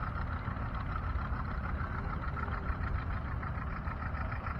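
An engine running steadily: a continuous low rumble with a steady, finely pulsing hum above it.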